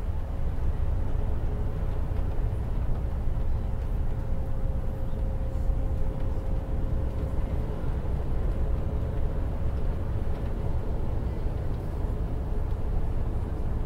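Steady low rumble of a coach's engine and tyres on a snowy road, heard from inside the passenger cabin, with a faint steady whine that fades out about halfway through.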